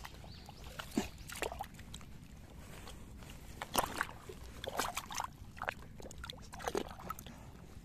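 Hand digging into a waterlogged eel burrow in wet mud: irregular squelching and sloshing of mud and muddy water, with a few sharper squelches.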